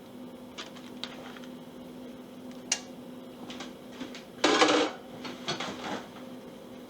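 Kitchen handling noises over a steady low hum: scattered clicks and knocks, then a loud rustle lasting about half a second midway, followed by a few softer rustles.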